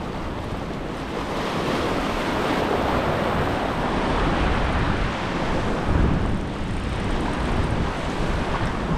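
Surf washing and foaming over a rocky shoreline, a steady rushing that swells about a second in.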